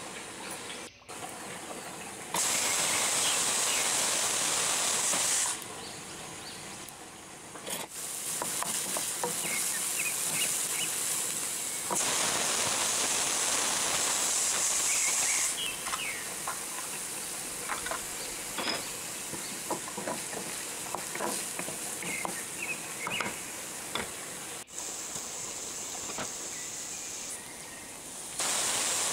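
Onions and garlic sizzling in hot olive oil in a wok, with short clicks and scrapes of a spatula stirring them. The sizzle starts and stops several times.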